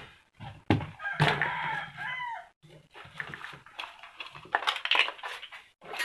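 A chicken calls with bending, wavering notes about a second in, over short knocks and clatter from plastic fan parts and a wire guard being handled.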